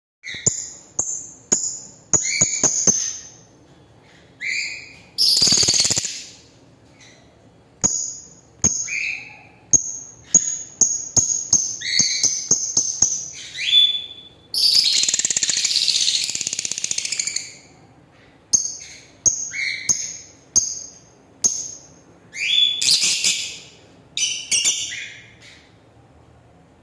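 Lovebird chirping: a run of short, high chirps and quick rising squeaks with brief pauses between, broken by two longer, rasping, noisy stretches, one about five seconds in and one midway.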